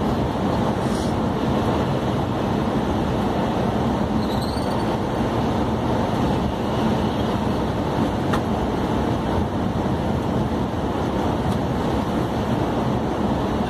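Steady road and engine noise of a vehicle driving at speed on smooth asphalt, with a faint low hum under it.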